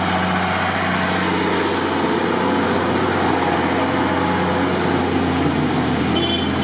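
Mercedes Unimog's diesel engine running steadily under load as it tows a Toyota Land Cruiser 79 and a Jeep Cherokee on a strap through deep muddy water, with water churning around the wheels.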